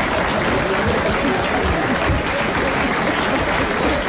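Studio audience laughing and applauding at the punchline of a joke, a steady mass of clapping and laughter.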